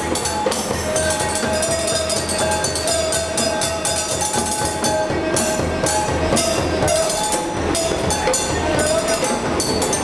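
Street percussion jam: djembe hand drumming and a stick rapidly striking metal bowls, dense and steady throughout. A subway train moves along the platform underneath it, adding a steady wavering whine.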